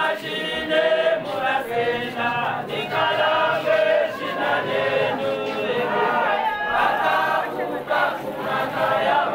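A choir of women singing a hymn together.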